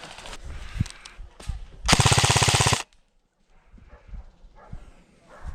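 Airsoft gun firing one fully automatic burst of just under a second, about fourteen shots a second, with a few scattered clicks and knocks around it.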